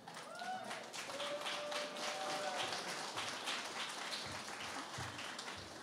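Audience applauding, a dense patter of claps, with faint voices talking underneath.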